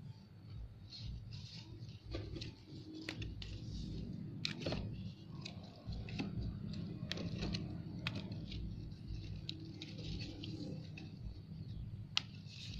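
Leaves rustling and scattered small clicks as a hand handles the leaves and stems of a young water guava sapling, over a steady low rumble.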